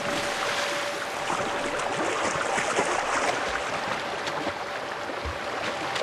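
Rushing mountain stream with irregular splashing as a Sichuan takin wades through it, its legs churning the water.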